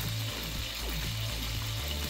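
Background music with sustained low bass notes that change pitch about once a second.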